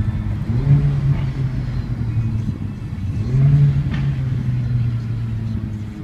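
Mercedes-AMG A45's turbocharged four-cylinder engine running under way, heard from inside the cabin. It rises and falls in revs briefly twice, about half a second in and again about three seconds in.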